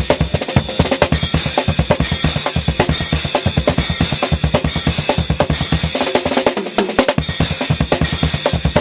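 Acoustic drum kit played hard and fast outdoors: a dense groove of rapid bass drum and snare strokes under a constant wash of cymbals, with a brief roll across the lower drums about six seconds in.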